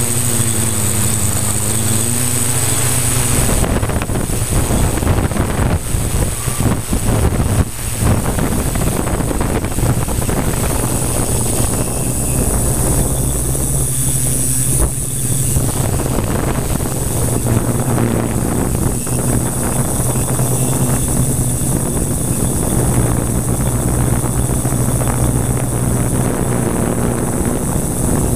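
Multirotor drone's electric motors and 15x5.5 propellers running steadily in flight, heard from a camera on the frame: a constant low hum under a high whine. Wind buffets the microphone unevenly between about 4 and 8 seconds in.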